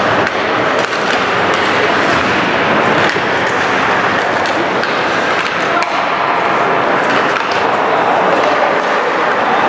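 Ice hockey play in a rink: skates scraping the ice and sticks and puck clacking in scattered sharp knocks, over a steady wash of spectators' chatter.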